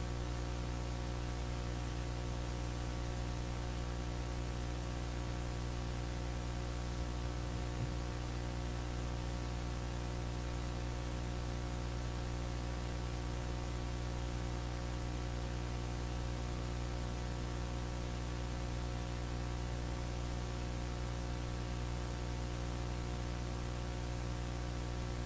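Steady electronic hum from the sound system, several held low tones over a constant hiss, unchanging throughout, with a faint knock about eight seconds in.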